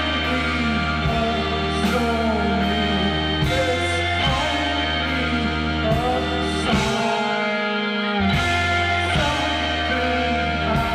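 Live band playing a rock song: a drum kit keeps a steady beat under held keyboard and bass notes, with a man singing over it.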